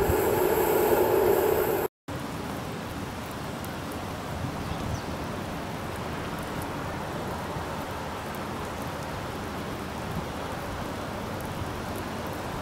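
A loud rumble cuts off abruptly at an edit about two seconds in. After it comes a steady, even hiss of outdoor background noise with no distinct events.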